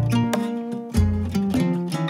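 Background music led by a plucked string instrument, notes picked over deep bass notes in a steady rhythm.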